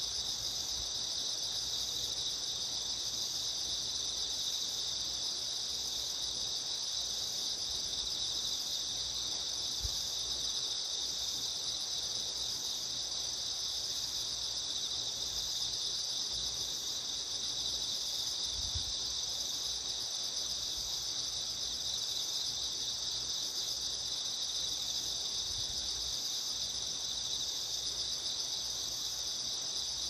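Crickets chirring in a dense, unbroken chorus, a steady high shimmer with a faint even pulse. A few faint low thumps come and go underneath.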